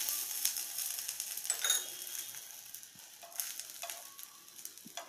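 Eggplant slices sizzling in mustard oil in a nonstick frying pan, the sizzle gradually dying down. There are a few light clicks in the second half as metal tongs touch the slices.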